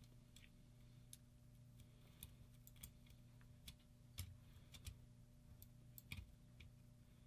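Faint, irregular small clicks and taps of hands fitting a drop-in circuit board and screws into a paintball marker's trigger frame, the sharpest about four and six seconds in.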